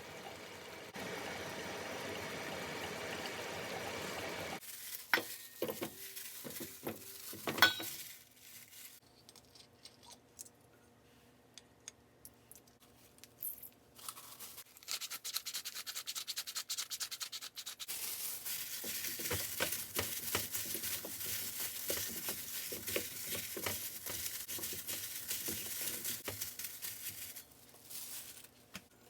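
Cooking sounds: a few seconds of steady hiss, then a run of sharp knocks and clicks, a quiet spell with faint ticks, and a long stretch of hiss with scraping and stirring that stops near the end.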